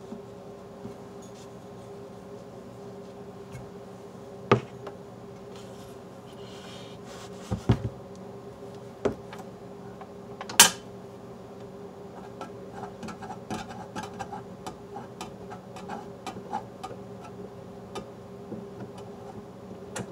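Hands handling the metal and plastic parts of a Super Technicolor 580 projector: a few sharp knocks in the first half, then a run of small clicks and scrapes as the top frame knob is worked loose and unscrewed. A steady hum runs underneath.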